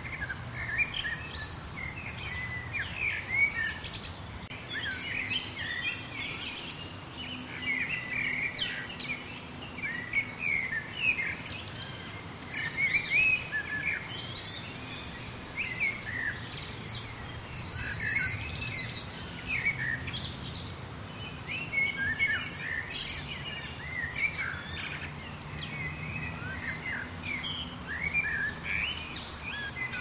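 A chorus of many small songbirds chirping and whistling at once, dense and unbroken, with a high, rapid trill rising above it about halfway through and again near the end.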